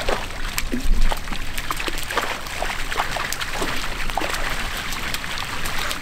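Water and live fish pouring from a canvas chute off a truck's tank into a pond: a steady gush of water with many small splashes as fish drop in.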